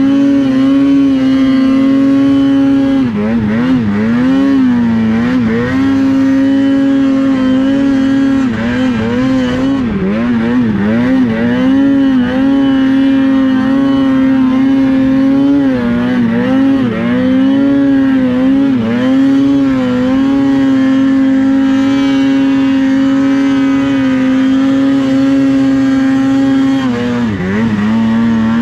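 Polaris Khaos snowmobile's two-stroke engine running hard at high revs in a steady, held note, dipping and recovering in quick wobbles several times as the throttle is worked.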